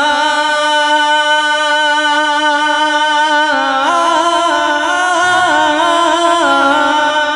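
A man singing a naat solo into a microphone, holding one long ornamented note without words. The note wavers and shifts in pitch a few times, stepping up about three and a half seconds in.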